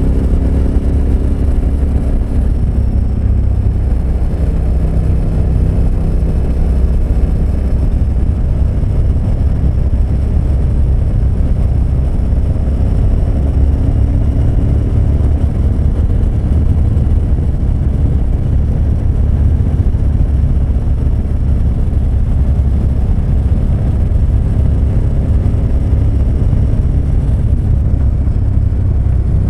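KTM 1290 Super Adventure S's V-twin engine running steadily at a constant cruising speed, under a loud, even rumble of wind and road noise on a wet road.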